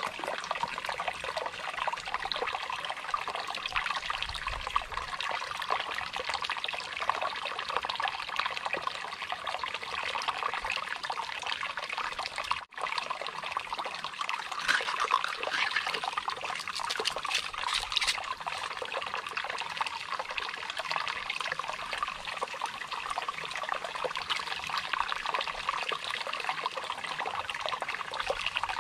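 Shallow stream trickling steadily over rocks, with occasional splashes from hands working in the water.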